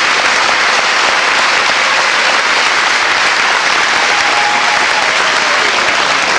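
Large audience applauding, steady and loud.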